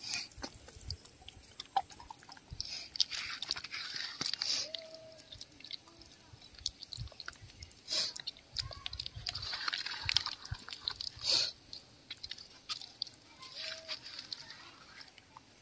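Wet squelching and smacking of hands working thick yogurt-and-spice tandoori marinade into chicken pieces, in irregular bursts with sharp clicks.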